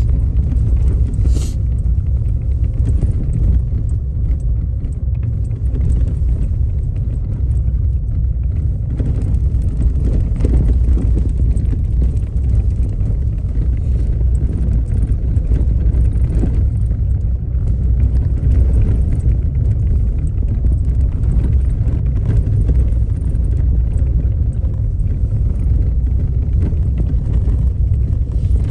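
Vehicle driving on a rough gravel road: a steady low rumble of tyres and engine.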